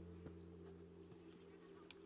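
Faint background music: a low chord held steady, with a couple of soft clicks.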